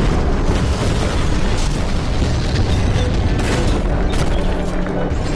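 Loud, continuous battle sound effects from a computer-animated robot fight: heavy booming and rumbling with several sharp impacts about two-thirds of the way through, over music.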